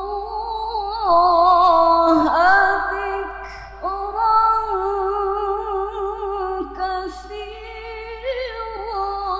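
A woman's voice reciting the Qur'an in melodic tilawah style into a microphone. Long held notes carry wavering melismatic ornaments and break into several phrases, loudest about a second to three seconds in.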